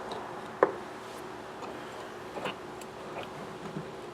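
A few light clicks and taps of small metal carburetor parts and hand tools being handled, one sharper knock about half a second in, over a faint steady hum.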